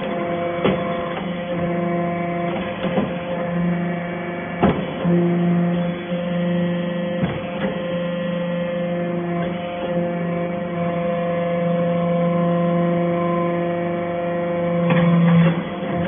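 Hydraulic metal-chips baling press running: a steady motor-and-pump hum with a few sharp metallic knocks.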